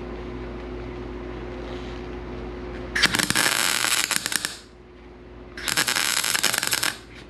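MIG welder laying two short weld bursts on the sheet-steel quarter panel and wheelhouse seam of a 1965 Mustang. The arc gives a crackling sizzle, starting about three seconds in and again about five and a half seconds in, each lasting a second or more, over a steady hum. The welder judges the settings almost spot on.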